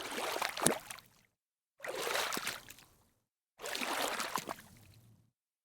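Three short bursts of water noise, each about a second long, cut apart by dead silence.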